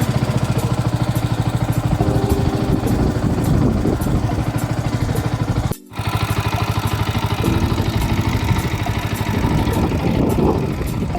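Yamaha MT-125's single-cylinder four-stroke engine idling with an even, rapid pulse. The sound cuts out briefly just before the middle and then carries on unchanged.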